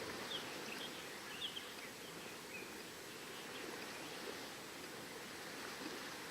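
Steady wash of surf on the shore, with a few short, high bird chirps in the first few seconds.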